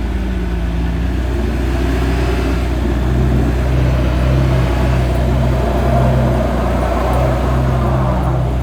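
Heavy truck engines running under load, their pitch gliding up and down as they rev, over a steady low drone.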